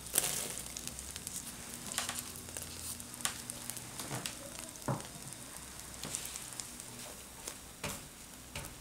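Butter sizzling in a nonstick frying pan, with irregular light taps and scrapes as mini marshmallows are tipped in and stirred with a spatula while they melt.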